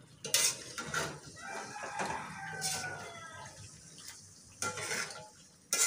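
A rooster crows once, a call of about two seconds falling slightly in pitch. Around it are a few short knocks and rubs from the metal karahi being handled with a cloth on the gas stove.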